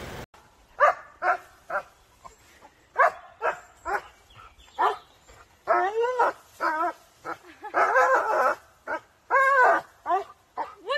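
A dog barking repeatedly at a low tree branch it is jumping at and tugging. The barks are short and spaced apart at first. After about six seconds they come longer, closer together and bending in pitch, like excited whining barks.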